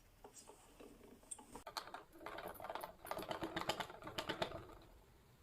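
Primo Turbo BMX pedals rattling: a quick, irregular run of light clicks and clatter lasting a few seconds, starting about two seconds in.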